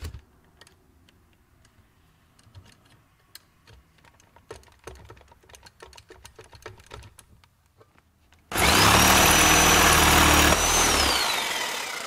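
Porter-Cable jigsaw with a reground universal metal-cutting blade starting suddenly, running at full speed for about two seconds, then switched off and winding down with a falling whine. Faint clicks of handling come before it.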